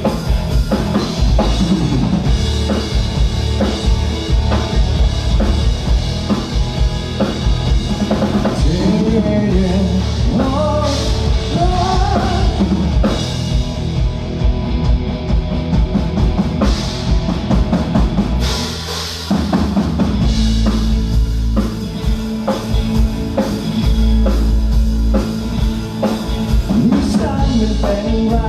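A live band playing rock-style music, with the drum kit and bass drum keeping a steady beat under a melodic lead line. The low end drops out briefly about two-thirds of the way through, then the full band comes back in.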